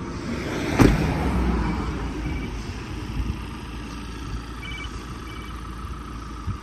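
Ford Transit cab door slammed shut once, about a second in, over a steady low rumble.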